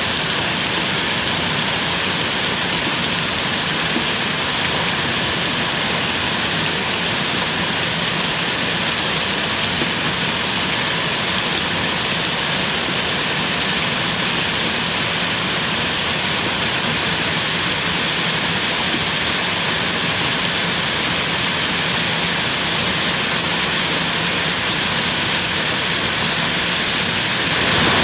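Steady rain falling, an even hiss of many drops that grows a little louder near the end.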